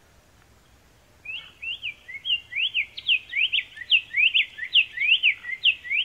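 Black-faced Tanager (Schistochlamys melanopis) singing: a quick run of short, slurred whistled notes, each sweeping up or down, beginning about a second in and carrying on without a break.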